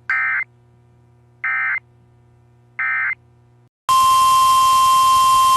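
Three short, identical warbling data bursts of an EAS/SAME end-of-message code, the sign that the preceding weather radio warning has ended. About four seconds in, a steady NOAA Weather Radio 1050 Hz warning alarm tone starts with radio static under it, announcing the next alert.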